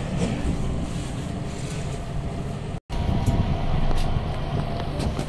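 Low, steady rumble of a Hitachi lift as its doors close and the car sets off, with a few light clicks. The sound cuts out completely for a split second about three seconds in.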